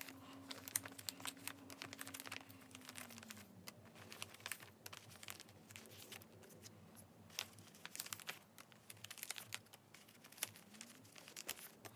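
Clear plastic photocard binder sleeve crinkling and rustling as cards are slid in and out of its pockets and the sheet is handled, with many small irregular clicks. A faint low hum underneath drops in pitch about a third of the way in and rises again near the end.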